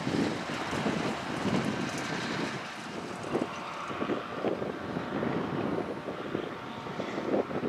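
Farm machinery engines, tractors and a self-propelled forage harvester, running as a steady drone, with gusty wind buffeting the microphone.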